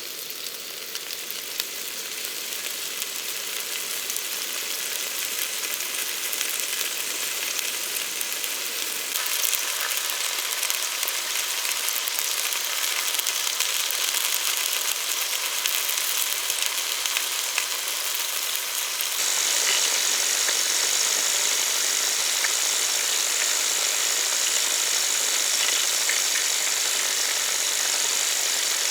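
Food sizzling and frying in hot oil in a cast iron frying pan: a dense, crackling hiss. It grows louder and changes character about nine seconds in, then becomes louder and brighter about nineteen seconds in.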